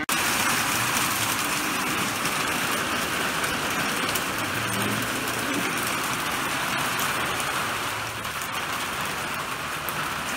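Heavy rain falling steadily, a dense even hiss that starts abruptly.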